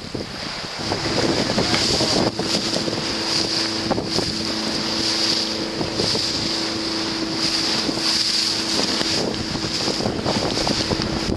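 Small boat's motor running at a steady pitch, starting about a second in, with wind buffeting the microphone and the sea washing around the hull.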